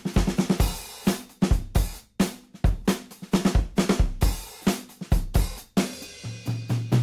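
Background music: a drum kit playing a steady beat with bass drum, snare and cymbals, with a low held note coming in near the end.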